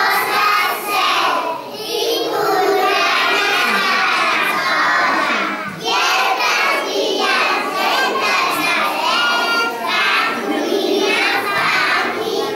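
A group of young children singing together in unison, in phrases of about four seconds each.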